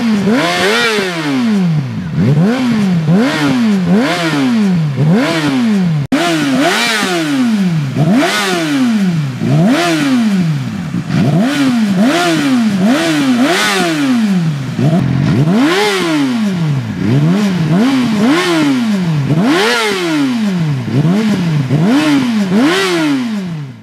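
2014 Yamaha YZF-R6's inline-four engine with a GYTR carbon slip-on exhaust, revved in neutral on the stand: repeated quick blips of the throttle, each rising sharply in pitch and falling back, about one every second and a bit.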